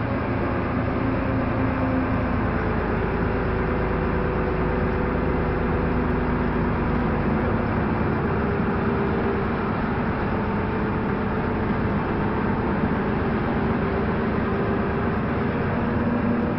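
Jelcz 120M city bus driving at a steady speed, heard from inside the passenger cabin: a steady engine hum with a few tones that drift slightly in pitch, over continuous tyre and road noise.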